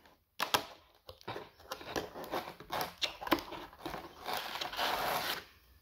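Fingers handling a small cardboard door on a paper-and-cardboard model boat: a run of light cardboard clicks, taps and scraping rustles, with a longer rustle near the end.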